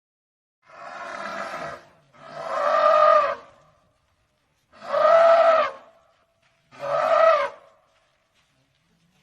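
African elephant trumpeting four times, each call about a second long and rising slightly then falling in pitch. The first call is quieter than the other three.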